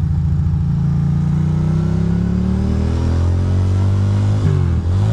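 2006 Ducati Monster 620's air-cooled L-twin engine, heard from the rider's seat, running steadily and then revving up as the bike accelerates; near the end the revs dip briefly and climb again.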